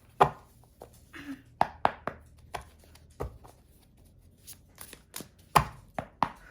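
A tarot deck being shuffled and handled on a table: a string of irregular sharp card slaps and clicks, a few of them loud.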